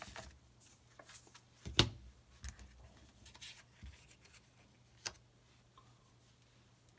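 Trading cards being handled and flipped through by hand: light slides, rubs and taps of card against card, with the sharpest snap a little under two seconds in and quieter handling toward the end.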